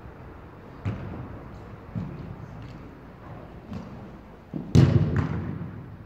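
A football being kicked and thudding several times in a large echoing hall. The loudest cluster of hits comes a little before five seconds in.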